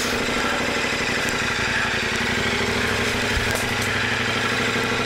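Adventure motorcycle engine running at steady low revs, with no revving.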